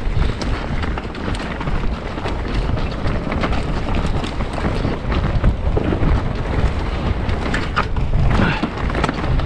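Mountain bike riding down a rough dirt trail: steady wind rush and rumble on the action-camera microphone, tyres running over dirt, and the bike rattling with frequent short knocks over bumps.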